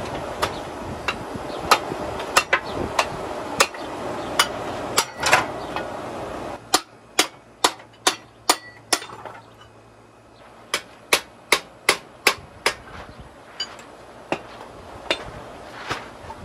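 Hand hammer striking the steel parts of a car's front suspension assembly while it is stripped down, sharp metallic blows. Over the first six or so seconds they fall over a steady whooshing noise. After that comes a quick run of blows, about two a second, then a few scattered strikes near the end.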